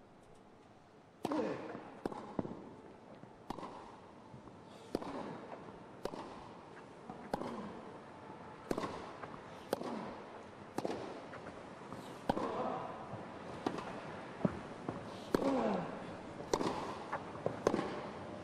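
Tennis ball struck back and forth in a long rally, a racket hit about once a second, starting about a second in. Short falling grunts follow some of the strikes.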